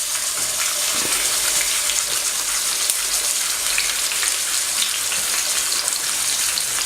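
Marinated whole fish shallow-frying in a little hot olive oil in a pan: a steady sizzle with constant small crackling pops.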